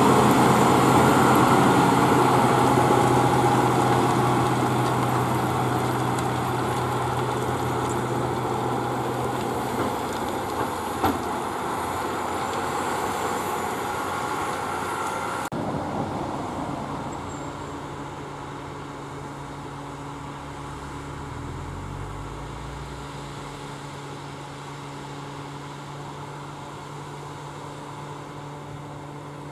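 Case IH Quadtrac 620 tracked tractor's diesel engine running hard as it pulls a disc cultivator through stubble, fading as the machine moves away. About halfway through the sound changes abruptly to a quieter, steady engine hum.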